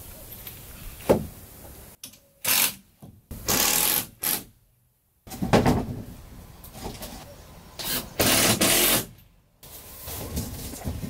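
A hand-held power tool running in short bursts of about a second, with knocks and handling clatter between them.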